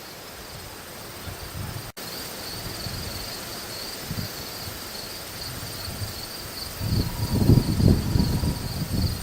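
Insects trilling steadily in the background. A low rumbling noise builds up from about seven seconds in.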